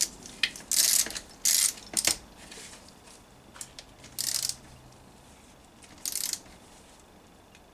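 Ratchet of a torque wrench clicking in about five short bursts of strokes, tightening a transmission case bolt on a Honda EP3 gearbox.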